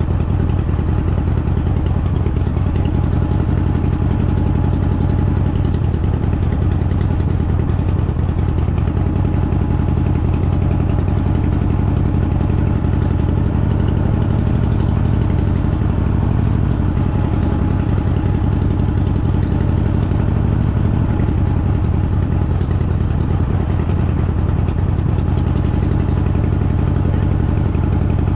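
Harley-Davidson Fat Boy's V-twin engine running steadily at low speed as the motorcycle rolls along a dirt road.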